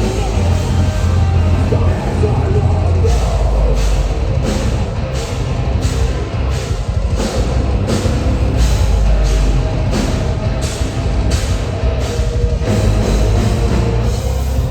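Metalcore band playing live: distorted guitars, heavy bass and drums, with drum hits landing about every two-thirds of a second from about three seconds in.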